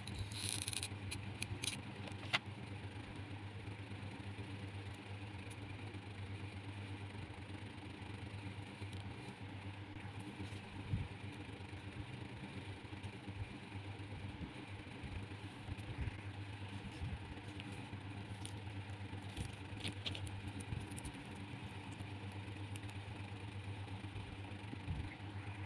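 Steady low hum, with a few light clicks and taps in the first couple of seconds as small plastic beads are handled.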